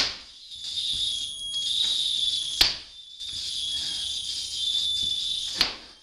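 A belt lashed against a wall by its non-buckle end, cracking sharply three times, about three seconds apart, over a steady high-pitched electronic noise that drops away for a moment after each crack.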